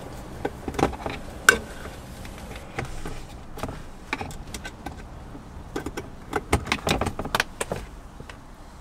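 Scattered light clicks and taps of hand work on a screw in the plastic cabin-filter grate behind the glove box, with a quicker run of clicks about two-thirds of the way through.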